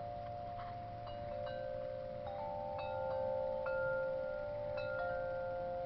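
Wind chimes ringing: a few metal notes struck one after another at irregular moments, each ringing on and overlapping the others.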